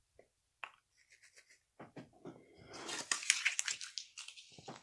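Baseball cards handled and flipped through by hand: a few faint clicks, then about three seconds in a short stretch of cards sliding and flicking against each other.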